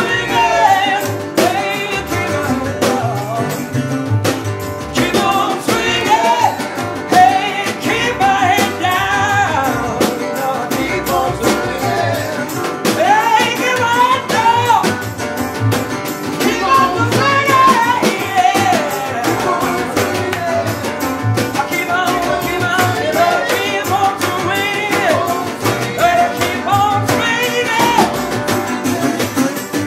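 Live acoustic rock: a male lead singer over a resonator guitar and an upright double bass.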